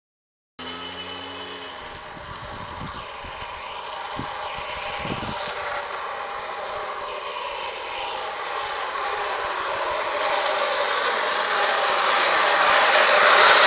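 Small wheels of an unpowered soapbox cart rolling fast on asphalt, a noisy rumble that grows steadily louder as the cart comes downhill and is loudest near the end as it passes close by.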